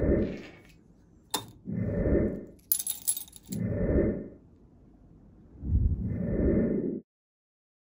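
Crushed green glass clinking inside a crucible: one sharp click, then a short cluster of bright clinks. Between them come three slow, low rushing swells, each about a second long and about two seconds apart.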